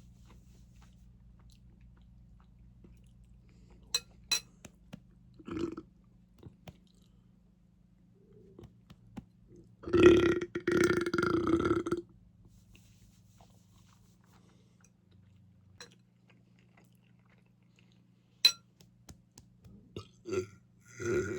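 A person eating, with a few sharp chewing clicks spread through, and one long belch of about two seconds near the middle.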